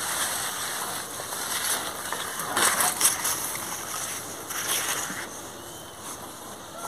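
Fig leaves and twigs rustling and brushing against the phone as it is pushed in among the branches. There are two louder surges of rustling, about two and a half and four and a half seconds in.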